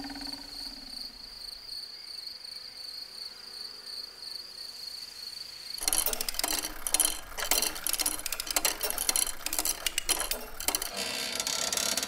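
Insect sound effects: a faint, steady high-pitched whine, then, about halfway in, a dense run of rapid dry clicking and rattling.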